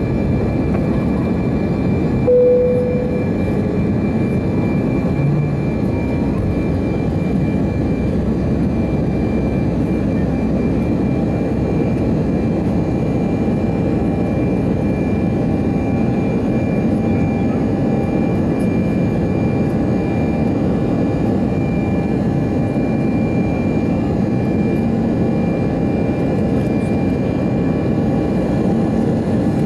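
Airbus A319 jet engines at climb power, heard from inside the cabin: a steady rush of engine and airflow noise with thin high whining tones over it. About two seconds in, a brief single tone sounds over the rush.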